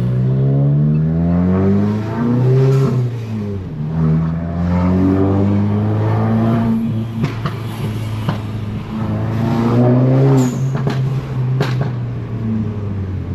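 Volkswagen Mk8 Golf GTI's turbocharged 2.0-litre four-cylinder accelerating through the gears, its pitch climbing, falling at a shift, then climbing again. A few sharp clicks or knocks are heard late on, and no clunk from the rear suspension's new end links is picked out.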